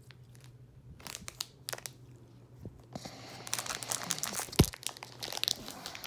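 Crinkling and rustling of toy packaging being handled: a few scattered clicks at first, then from about halfway a steady crinkling, with one loud thump near the end.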